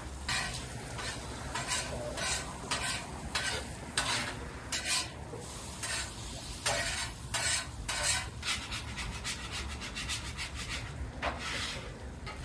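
A spoon stirring chili in a small steel pot, then a metal spatula scraping and turning bacon lardons on a hot flat-top griddle. It is a run of short, irregular scrapes over a low sizzle.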